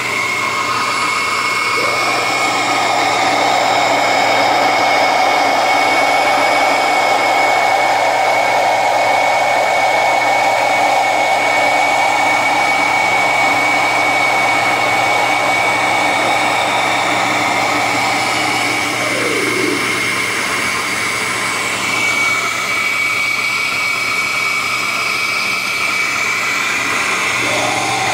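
Oster 14-speed glass-jar blender running steadily as it blends a thick fruit smoothie. The motor's pitch steps up about two seconds in, drops a little past halfway, and rises again near the end.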